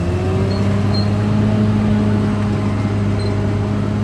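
Caterpillar D6R XL bulldozer's diesel engine running steadily at a constant speed, with a few faint short high squeaks.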